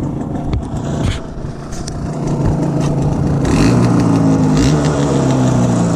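Yamaha DT 125's single-cylinder two-stroke engine running steadily, then revving up and getting louder about three and a half seconds in.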